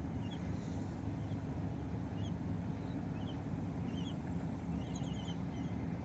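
Steady low outdoor rumble, with faint short high bird chirps scattered through it and a quick run of chirps about five seconds in.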